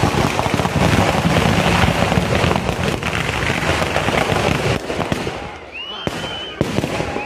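Firecrackers going off in a dense, rapid barrage of cracks, one on top of the next, thinning out to a few scattered bangs about five seconds in.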